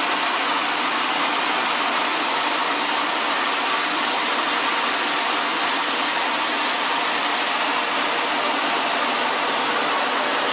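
A machine running steadily: an even, unchanging noise with no distinct beats or changes.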